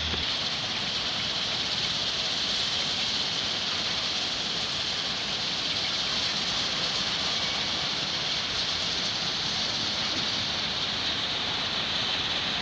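A steady, even hiss that does not change, strongest in the upper middle of the range, with no engine note or voice in it.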